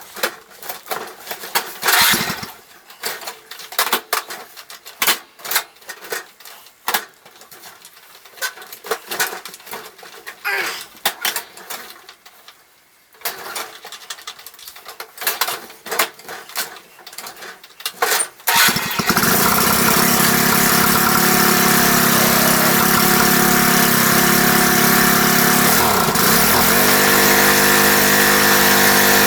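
A string of scrapes and knocks from snow being shoveled, then, about two thirds of the way through, a riding lawn mower engine comes in loud and runs steadily, its pitch dipping briefly and recovering near the end.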